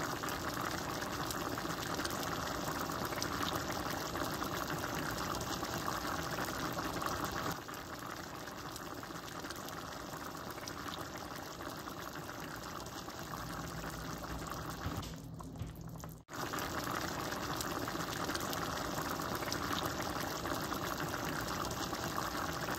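A pot of ground chicken and mung bean soup boiling on the stove, bubbling steadily as it is stirred with a spatula. The sound breaks off briefly about two-thirds of the way through.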